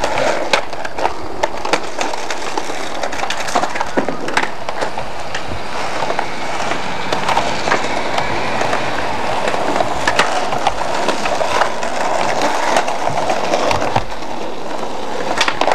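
Skateboard wheels rolling on rough concrete, a steady rolling noise broken by frequent sharp clacks of the board popping, landing and slapping the ground.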